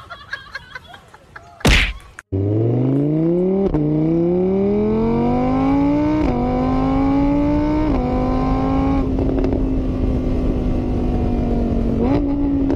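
A vehicle engine accelerating. Its pitch climbs and drops back three times, as if shifting up through the gears, then holds steady at cruising speed before rising slightly near the end. Before it there is a short clatter and a sharp knock.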